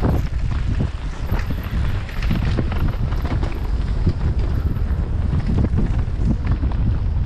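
Mountain bike ridden fast down a dirt singletrack: wind buffeting the GoPro's microphone under a steady tyre rumble, with frequent clicks, knocks and rattles from the bike over roots and rocks.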